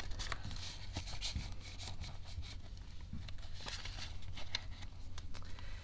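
Paper banknotes rustling and being flicked through by hand as they are pulled from a plastic binder pouch and counted, with many soft scattered clicks over a steady low hum.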